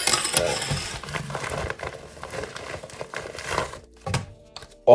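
Plastic packaging crinkling and rustling as it is handled, stopping after nearly four seconds, then a single light knock.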